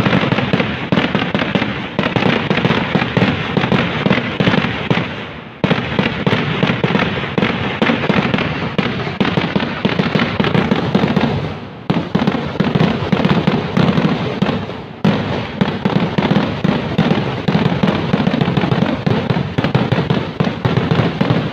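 Kerala vedikettu fireworks going off in a dense, continuous barrage of rapid bangs and crackle. It dips briefly about a quarter of the way in, just past halfway and about two-thirds of the way through.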